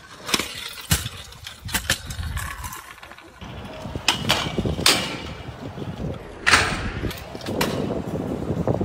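Stunt scooter riding on concrete and metal rails: wheels rolling, the deck scraping and grinding along rails, and sharp clacks of landings and impacts. There are several clacks, the loudest about six and a half seconds in.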